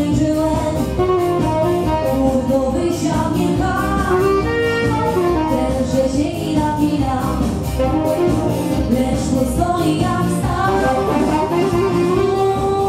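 Band music: a woman singing into a microphone, with a saxophone playing alongside her over the band's accompaniment.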